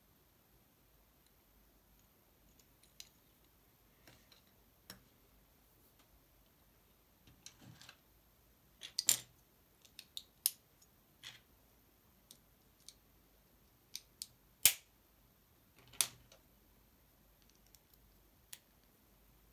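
Small plastic LEGO bricks being pressed and snapped together by hand: scattered sharp clicks, with a few louder snaps through the middle stretch.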